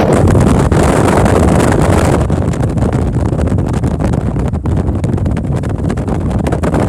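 Wind and road noise of a moving car, with wind buffeting the microphone; the rush is louder and brighter for about the first two seconds, then eases.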